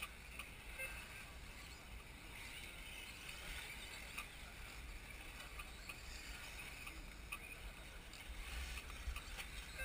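1/10-scale electric off-road buggies with brushless motors racing round a grass and dirt track: a faint, steady high motor whine and tyre noise. Scattered short clicks run through it.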